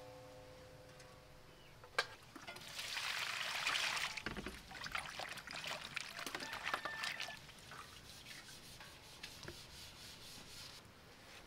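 Water pouring and sloshing as hands rub and rinse blackened, hay-cooked beef in a basin, with a single knock about two seconds in. The splashing thins out near the end.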